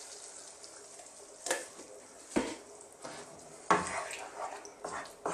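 A spoon stirring cream into a frying pan of bacon and mushrooms, knocking against the pan several times over a faint sizzle.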